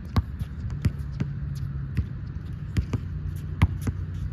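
An underinflated, flat basketball bouncing on an outdoor concrete court: about eight separate, irregularly spaced bounces, dribbles and catches, over a steady low hum.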